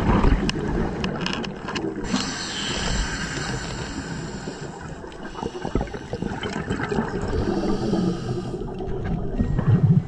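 Underwater water noise and gurgling air bubbles, heard as a steady rushing with a brighter hiss from about two seconds in until about seven and a half seconds.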